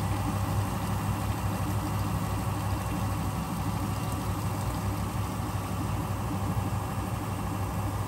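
Mercury inboard boat engine idling steadily with an even low hum, heard close up in the engine bay on its first run after winter storage.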